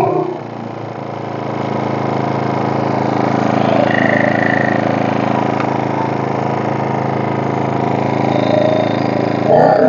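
Senci portable inverter generator's petrol engine running steadily and smoothly, with the soot-clogged mesh nets taken out of its exhaust outlet. Its level dips just after the start and climbs a little over the next couple of seconds, then holds even.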